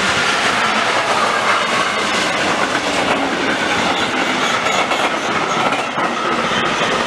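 Container freight train hauled by a class 185 Traxx electric locomotive passing close at speed: a steady loud noise of wagon wheels running and clattering over the rails.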